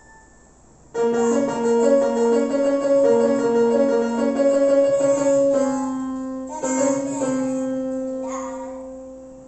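Yamaha portable electronic keyboard being played: a short melody of notes starts about a second in, then longer held notes slowly fade away toward the end.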